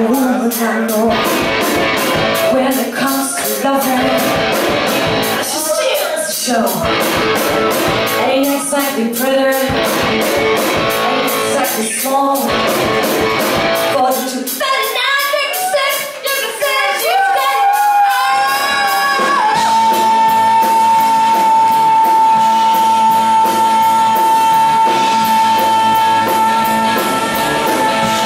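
Live rock band playing: female lead vocals over electric guitar, bass guitar and drums. After about twenty seconds a single high note is held steadily, dropping away near the end.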